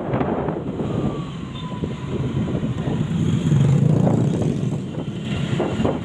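Road traffic noise with wind rumbling on the microphone, the rumble heaviest a little after the middle.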